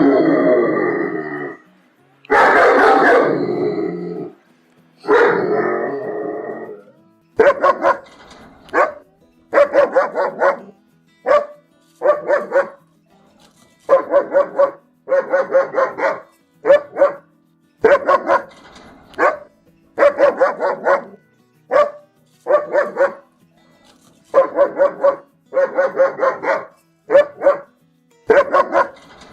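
Angry German Shepherd barking: three long, harsh growling barks, then steady volleys of short loud barks in quick groups of two to four.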